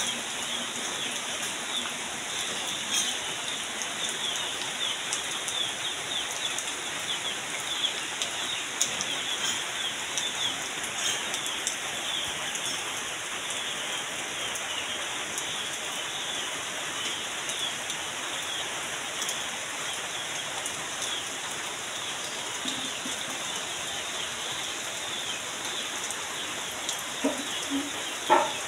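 Heavy downpour, rain drumming steadily on a corrugated metal roof and on foliage with a dense crackle of individual drops. A few short, sharper sounds stand out near the end.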